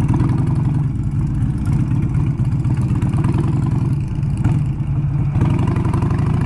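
Harley-Davidson motorcycle's V-twin engine running at low speed while riding on a dirt road, heard from on the bike as a steady, low, pulsing beat.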